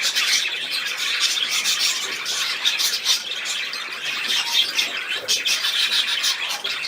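Budgerigar chattering: a continuous stream of rapid high chirps, clicks and squawks.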